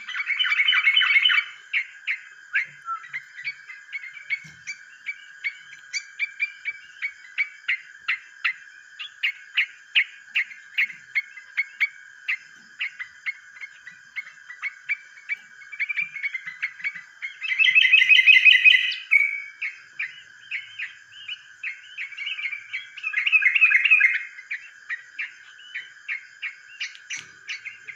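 Caged yellow-vented bulbuls calling: a string of short chirps, about two or three a second, broken by three louder bursts of rapid chattering song, near the start, about two-thirds through and near the end. A steady high whine runs underneath.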